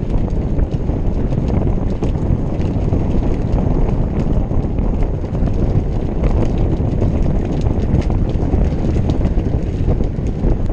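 Wind rushing over the camera microphone of a moving road bike, a steady low rumble with scattered light clicks and rattles.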